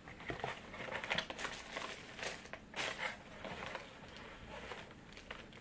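Paper lining and plastic snack packets crinkling and rustling as a cardboard candy box is handled and opened out: a run of irregular crackles, busiest in the first three seconds and thinning out near the end.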